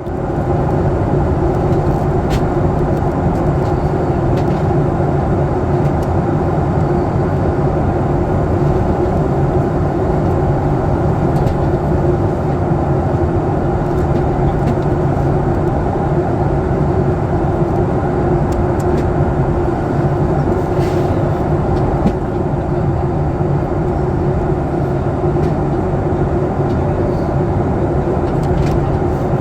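Steady cabin roar inside a Boeing 737 MAX 8 in descent: airflow over the fuselage and its CFM LEAP-1B engines, with a steady low hum under a loud, even rush.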